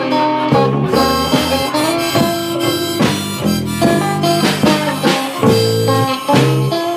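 Instrumental section of a band's rock song, with no vocals: a lead melody of held notes over guitar and a drum kit keeping a steady beat.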